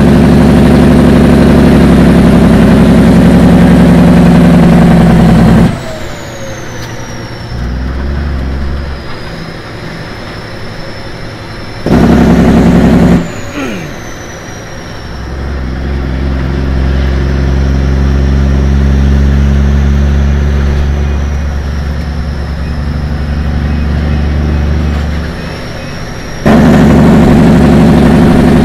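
Dina truck's engine running at speed on the highway, heard from inside the cab as a steady low drone. The drone drops sharply to a quieter level about six seconds in, comes back loud briefly around twelve seconds, swells and fades again, and returns loud near the end.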